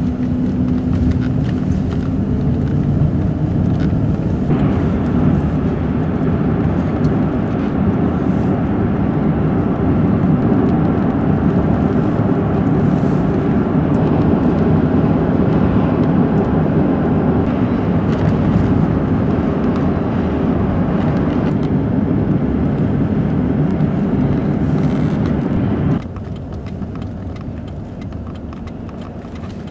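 Steady road and engine rumble inside a moving car's cabin, dropping suddenly to a quieter level near the end.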